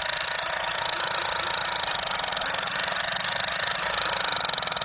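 Battery-powered toy machine gun playing its electronic rapid-fire sound effect: a fast continuous rattle with a steady high whine over it, which near the end breaks into distinct, evenly spaced pulses.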